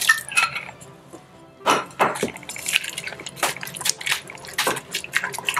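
Wooden spoon knocking and scraping against an enamel pot while stirring a thick yeast starter of flour and milk: a run of irregular clicks and taps, dense from about a second and a half in.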